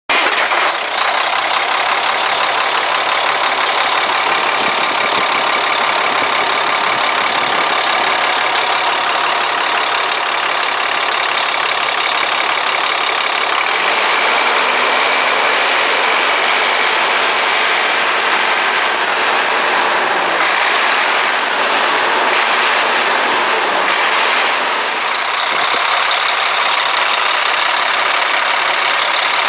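Caterpillar 3176 inline-six diesel truck engine idling steadily.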